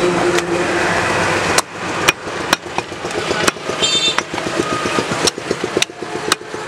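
Butcher's cleaver striking a wooden log chopping block while cutting goat meat: a series of sharp knocks, roughly two a second. They start after a second and a half of steady street and traffic noise.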